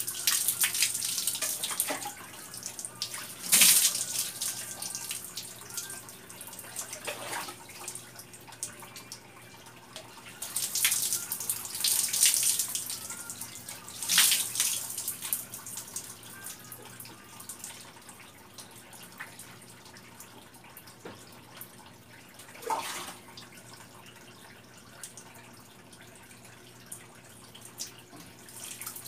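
Water poured from a plastic bath dipper splashing over a bather and onto a concrete floor, in several separate pours of a second or two, most of them in the first half and one more about three-quarters of the way through.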